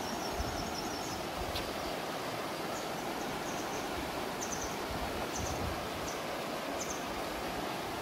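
Steady rush of a shallow mountain stream running over rocks, with low wind rumble on the microphone. Brief high chirps come a few times.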